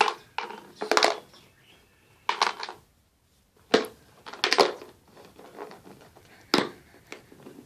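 Clear plastic food storage container and its clip-on lid knocking and clattering as they are handled, a string of short separate clunks and clicks with quiet gaps between.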